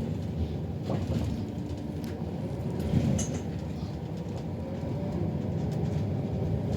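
Riding inside a city bus as it drives: a steady low rumble of engine and road, with faint slowly shifting motor tones. A few rattles are heard, and there is a sharper knock about three seconds in.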